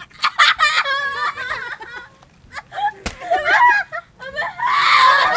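Women laughing and squealing in high, wavering voices, with one sharp slap about three seconds in and a loud burst of shrieking laughter near the end.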